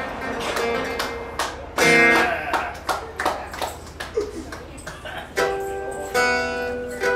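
Guitar music: single plucked notes with a loud strummed chord about two seconds in, then chords left ringing near the end.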